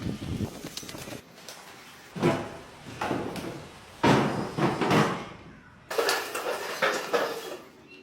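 Workshop noise of wood being worked by hand: a run of sudden knocks, each followed by a short scraping rush and spaced about a second apart. The loudest comes at about four seconds and another near six seconds.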